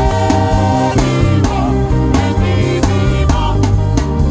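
Live gospel praise music: a band with drum kit and bass playing a steady groove, with a singer holding a long note in the first second.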